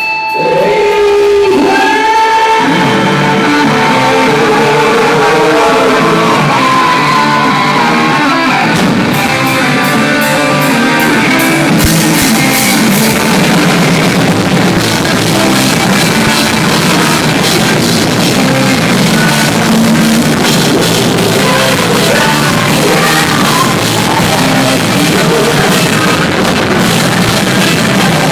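Live rock band playing loudly, with singing, electric guitar and drum kit, echoing in a large hall; the music builds up after a brief dip at the start and runs on at full intensity with cymbals from about nine seconds in.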